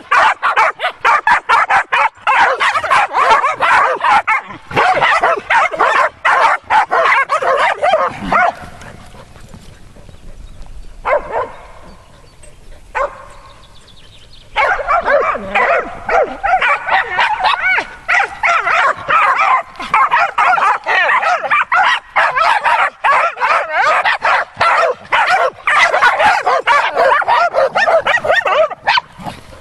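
Dogs barking and yipping rapidly and without let-up. They break off for about six seconds a third of the way in, apart from two lone barks, then start again.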